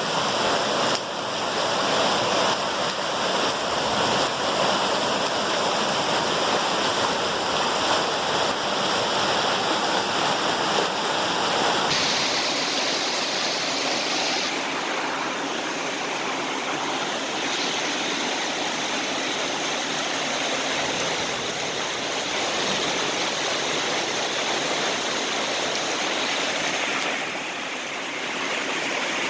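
Heavy downpour: a steady, dense rush of rain and running water.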